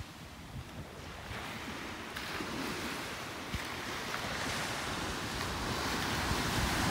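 Small Gulf of Mexico surf washing onto a sandy shore, a steady rushing hiss that swells gradually louder, with wind rumbling on the microphone.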